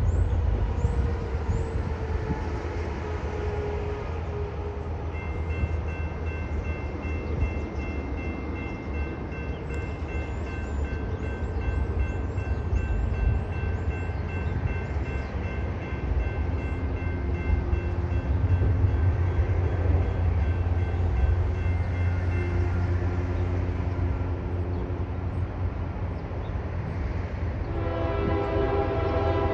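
CSX diesel freight train approaching, its locomotive engines rumbling low throughout, with a steady high-pitched tone for much of the middle. About 28 seconds in, the lead locomotive's air horn starts to sound loudly, a chord of several tones.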